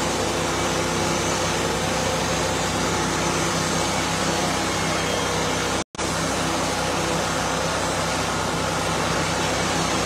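Portable sawmill's engine running steadily. The sound cuts out completely for a split second near the middle.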